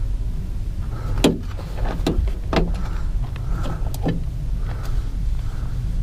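Several sharp knocks and clicks from work inside a junked van, the loudest about a second in, over a steady low rumble.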